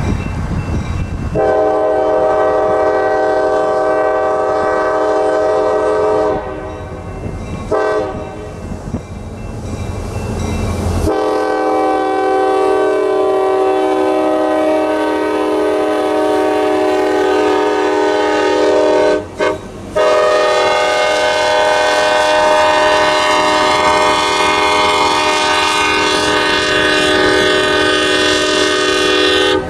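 Norfolk Southern EMD GP38-3 locomotive's air horn blowing for the grade crossing, a chord of several steady notes: a long blast, a brief toot, then two more long blasts split by a short gap. The train is rolling through the crossing near the end.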